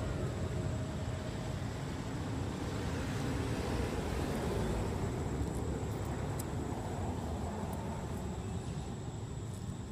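Steady low rumbling background noise with a thin, steady high tone above it and a few faint clicks.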